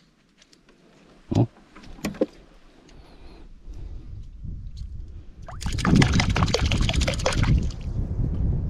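Water sloshing and splashing around a small wooden fishing boat, with two short knocks in the first couple of seconds. The water noise builds and turns loud and crackling for about two seconds past the middle.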